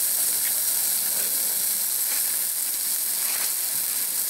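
Marbled Kobe beef steak sizzling steadily in a hot cast-iron skillet, with a few faint pops.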